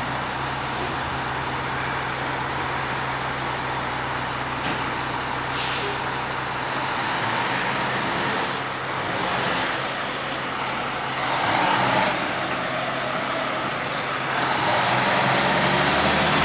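E-One fire pumper's Cummins diesel engine running steadily, growing louder near the end as the truck pulls out. Two short hisses of air from its air brakes, about a second in and again around six seconds.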